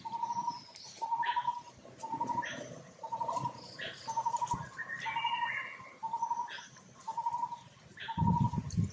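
A bird repeating a short trilled note at one steady pitch, about once a second, with scattered short high squeaks over it. A brief low rumbling noise near the end.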